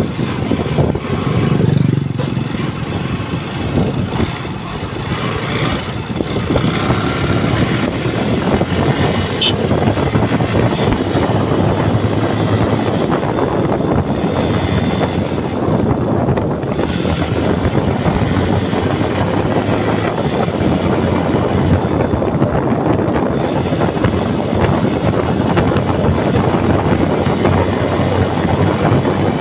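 Steady rumble of a vehicle on the move, with wind buffeting the phone's microphone.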